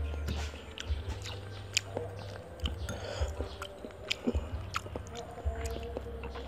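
Person eating a soft, milky dessert with a metal spoon from a ceramic bowl: chewing and mouth sounds, with the spoon clinking and scraping against the bowl in scattered sharp clicks, over a low steady rumble.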